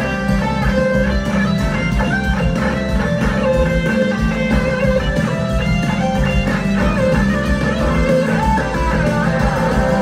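Live band playing an instrumental guitar passage with no singing. Two electric guitars play over bass and drums.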